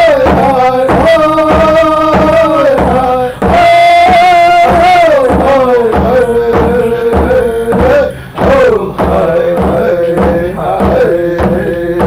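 A man's singing voice holding long, gliding notes over a steady drumbeat: the song sung by men that runs as the soundtrack.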